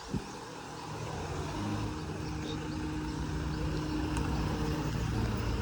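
A motor vehicle running steadily with a low hum that grows slowly louder, and a single knock just after the start.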